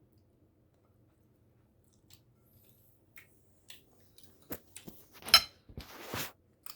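Handling noise from a pancake container: scattered light clicks and taps, louder in the second half, with a short squeaky scrape just after five seconds and a brief rustle around six seconds.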